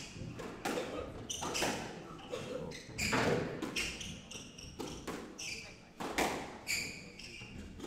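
Squash rally: the ball cracking off rackets and slapping off the court walls, about one hit every half second to second, with short high squeaks of court shoes on the wooden floor between strokes.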